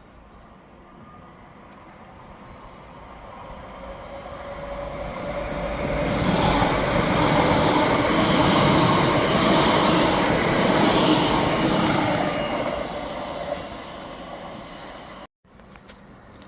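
A Greater Anglia Class 720 electric multiple unit passes at speed. Its sound builds over a few seconds, stays loud for about six seconds with a steady rumble and some faint tones, then fades. Near the end the sound cuts out for a moment.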